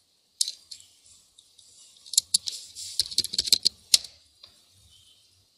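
Typing on a computer keyboard: an irregular run of quick key clicks lasting about three and a half seconds, densest near the middle.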